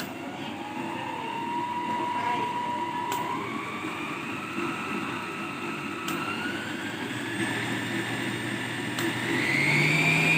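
Dessini Italy 6-speed electric stand mixer's motor running with a whine that rises in pitch in steps as the speed is turned up. There is a faint click at each step, about every three seconds.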